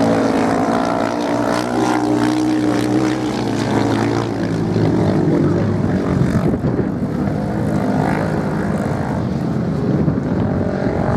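Several off-road racing motorcycles' engines running hard, their pitch rising and falling as the riders accelerate and ease off.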